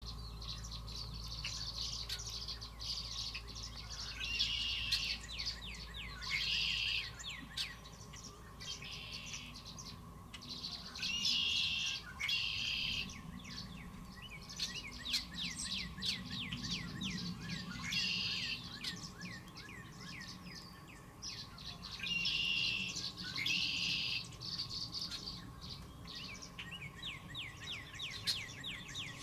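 Tree swallows twittering: a steady stream of short, quick chirps, broken every few seconds by denser bursts of liquid warbling.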